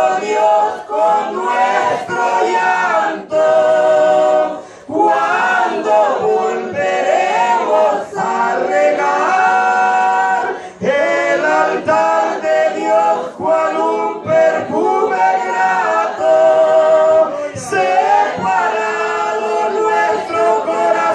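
A man and a woman singing a Spanish-language hymn together into microphones, with long held, wavering notes and short breaks between phrases.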